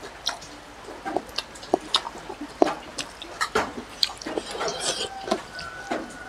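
Close-up wet eating sounds: chewing and lip smacks while fingers squish rice soaked in broth, heard as irregular sharp clicks and smacks.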